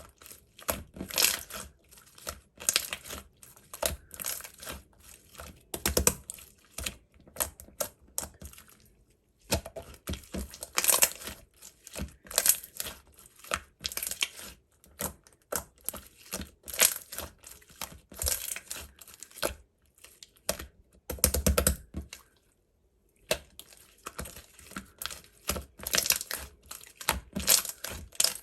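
Slime being squished and stretched by hand, giving rapid sticky clicks and crackling pops, with two brief pauses.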